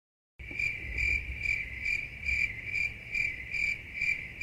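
Cricket chirping: a steady high trill swelling in regular pulses about two to three times a second, starting abruptly about half a second in, over a faint low rumble.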